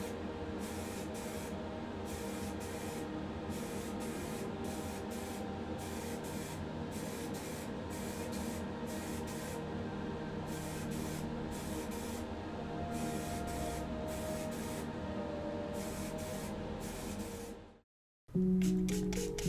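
Paint spraying the colour coat onto diecast toy parts: a steady hiss broken into many short bursts. It cuts off near the end and music begins.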